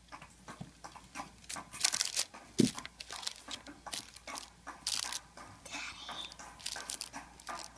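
Plastic toy horse figurines handled and moved over crumpled tissue paper: scattered rustles, crinkles and light taps, the firmest knock about two and a half seconds in.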